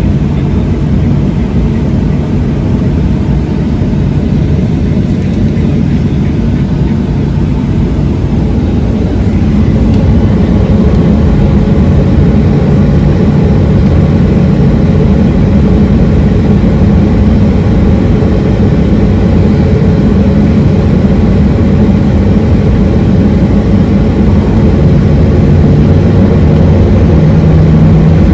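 Airliner cabin noise of the jet engines: a steady low drone that gets louder about ten seconds in and again near the end, with a hum rising in pitch at the very end.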